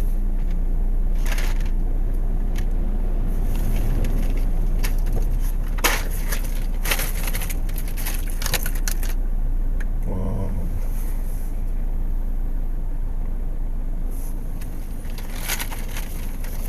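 Steady low hum of a car idling, heard inside the cabin, with scattered crackling and clicking as a bottle of caramel popcorn is handled and opened.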